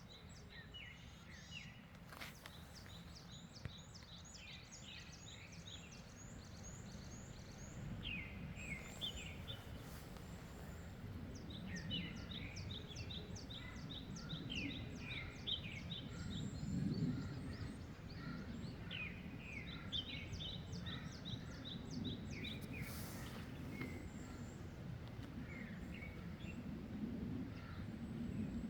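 Small birds singing and chirping in quick runs of high notes, over a low wind rumble that grows a little louder about a third of the way in.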